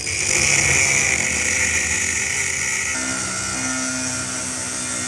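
A power tool running steadily, its tone shifting about three seconds in, then cutting off abruptly.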